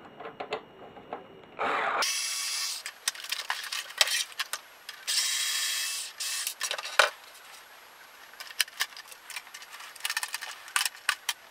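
Cordless drill-driver backing out small screws from a plastic RC truck body in two short runs of about a second each, around 2 and 5 seconds in. In between and after come clicks and light knocks of the plastic parts being handled.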